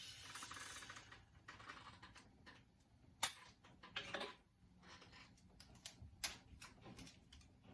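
Faint handling sounds of Scotch tape: a short crackling pull of tape off the roll in the first second, then scattered light clicks and taps as it is handled and pressed onto the glass.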